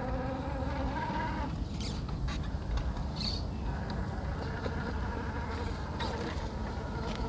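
Hobbywing Quicrun Fusion brushless motor in an Axial Unimog 6x6 RC crawler whining as it drives at crawl speed. The whine drops away about a second and a half in and comes back for the second half, with scattered short clicks.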